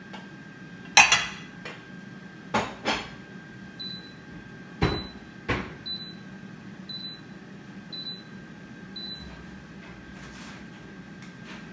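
Several sharp knocks and clatter of kitchenware, then an electronic beeper sounds six short high beeps about one a second. The beeps fit the Milex air fryer signalling that its cooking cycle has finished.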